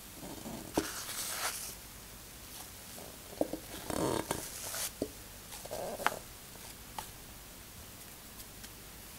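Silicone spatula scooping beaten egg whites into batter in a glass bowl: soft scrapes and wet plops, with a few sharp clicks of the spatula against the bowl.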